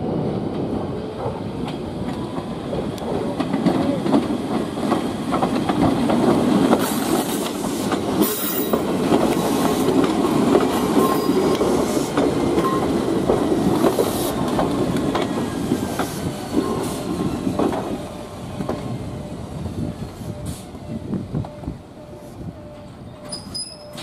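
Nagano Electric Railway 3500 series electric train rolling slowly past at close range through the station's pointwork, wheels clicking over rail joints with faint squeals on the curves. It grows quieter over the last few seconds as the train slows.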